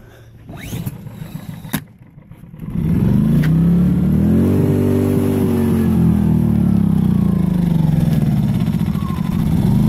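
Powerhorse 2000-watt inverter generator's small gas engine pull-started cold on choke: after a few faint clicks and rattles, it catches about three seconds in and runs, its speed rising and then easing back down. The owner judges it needs a little more choke.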